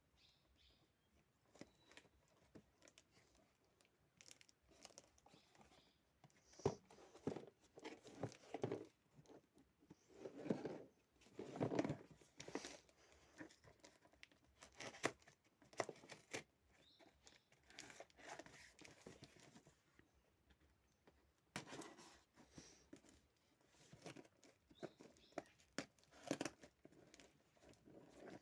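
A delivery package being cut and torn open: irregular rustling, tearing and crinkling of the packaging, with sharp clicks and handling knocks in between.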